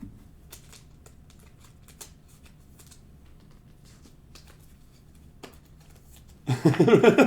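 Trading cards being handled and flipped through by hand: faint, scattered light clicks and slides. A man starts speaking near the end.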